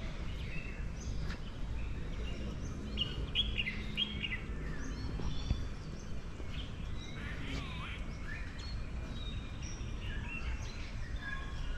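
Several birds chirping and whistling, many short overlapping calls, over a steady low background rumble.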